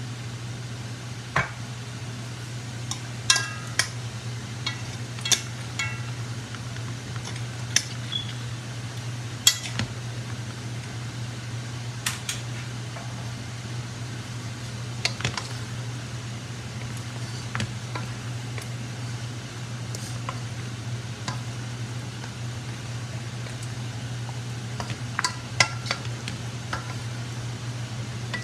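Scattered clinks and knocks of kitchen utensils against pots and dishes, some ringing briefly, over the steady low hum of a range hood fan.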